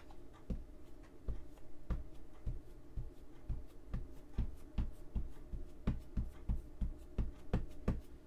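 A Distress Oxide ink pad dabbed again and again onto a gel press printing plate, inking it: soft, dull taps about two a second, some eighteen in all.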